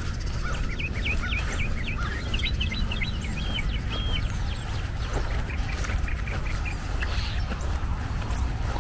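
A bird calling in a quick run of short chirps over about three seconds, ending on a couple of longer even notes, with fainter chirps later. A steady low rumble runs underneath.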